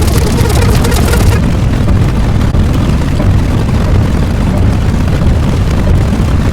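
Loud, steady low rumble, with a crackling hiss over the top during the first second or so.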